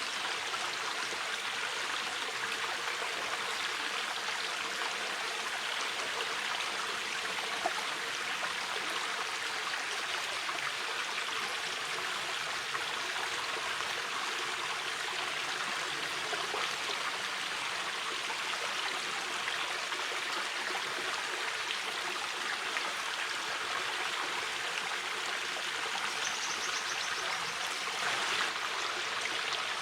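A small mountain river flowing steadily over stones, a constant even rush of water with faint splashes and trickles.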